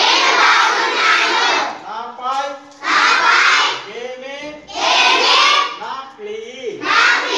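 A class of children reciting loudly in unison, echoing short lines spoken by a man: four group chants of one to two seconds each, alternating with his single voice.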